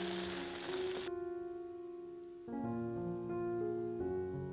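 Beef and broccoli sizzling in a wok as they are stir-fried, cut off about a second in; soft background piano music runs throughout.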